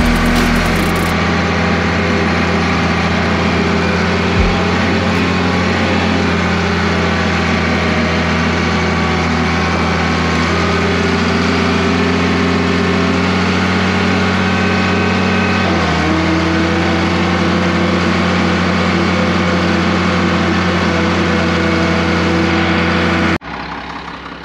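Tractor engine running steadily under load, with a small shift in pitch about sixteen seconds in; the sound cuts off abruptly near the end.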